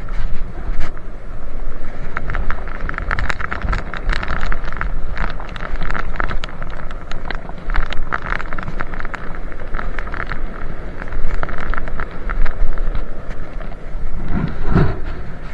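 Loud, steady rushing noise full of crackles and rustles: wind buffeting the microphone over rushing stream water, with a short rising sound near the end.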